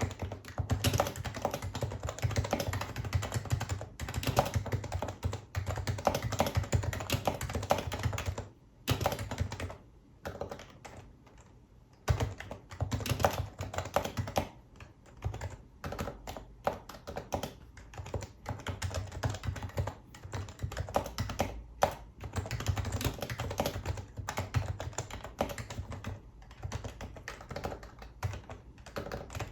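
Typing on a Happy Hacking Keyboard Professional HYBRID Type-S with electrostatic capacitive (Topre) switches: a quick, steady patter of soft, muted keystrokes, with short pauses now and then.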